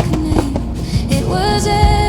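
Pop-style music with a singing voice holding long, wavering notes over a steady low accompaniment.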